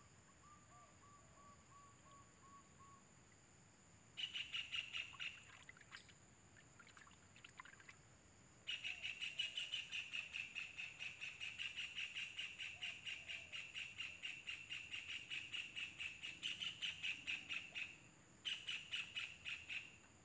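Kingfisher nestlings calling from their nest burrow: fast runs of repeated high chirps, about four or five a second, in three bouts, the longest lasting about nine seconds. A faint short series of lower notes from another bird near the start.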